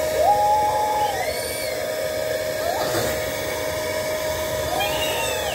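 Battery-powered bubble gun's electric motor and fan running steadily while it blows out a thick stream of bubbles, a constant whine with an airy rush under it.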